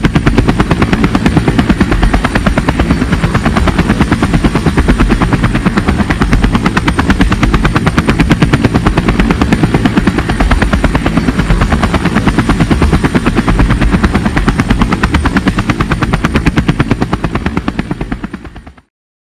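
A helicopter's rotor chopping with a fast, even beat, holding steady and then fading out near the end.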